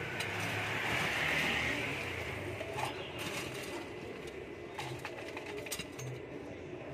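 Ice cubes scooped with a metal scoop from a bag of ice in a cooler and dropped into a plastic cup: a scraping rustle for about the first two seconds, then scattered clinks and rattles of cubes against scoop and cup.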